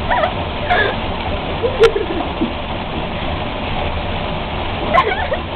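A boxer dog splashing and sloshing through bath water in a tub of bubble bath as it spins after its tail. A few short voice-like calls break in over the water sound.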